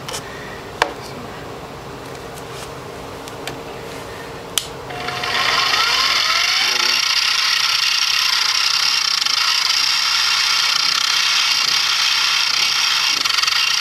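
A mini milling machine's spindle motor is switched on about five seconds in and runs at a steady, high-pitched whir as the center drill in its chuck starts a hole in an aluminum block. Before that, two sharp clicks.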